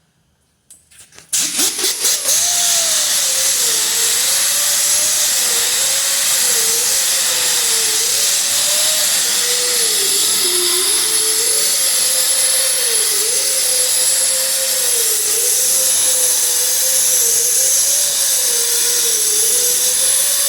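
Power sander with a 36-grit hook-and-loop disc stripping layers of old paint and body filler off a car body panel. It starts about a second in and runs steadily, its whine dipping and rising as the disc is pressed and worked back and forth over the panel.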